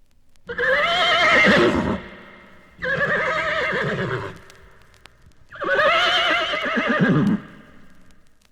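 Horse whinnying three times, each call a long neigh with a wavering, trembling pitch, about a second and a half long.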